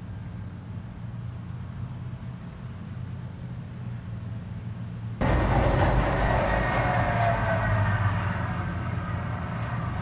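Heavy farm harvest machinery running, first as a low steady drone. About five seconds in, the sound cuts suddenly to a louder, closer machine with a rattle and a whine.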